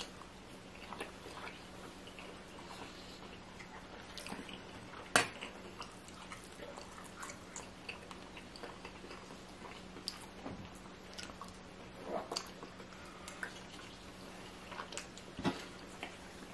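A person chewing and eating close to the microphone: scattered wet mouth clicks and smacks, with one sharper click about five seconds in. A faint steady hum runs underneath.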